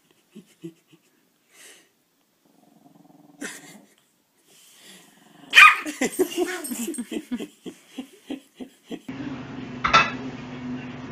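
Small dog lying on its back growling and barking in a rapid run of short bursts, starting with a sharp loud bark about five and a half seconds in; before that only a few faint short noises.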